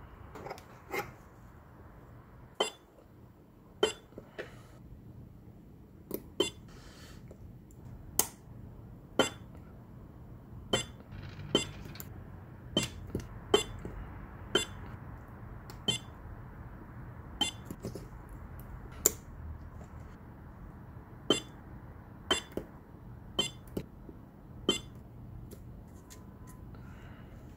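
Battery spot welder firing weld after weld as its pen electrodes join two layers of 0.15 mm nickel strip to 18650 lithium-ion cells, a short sharp crack with each pulse. There are about two dozen of them, irregularly spaced about a second apart, and they stop a few seconds before the end.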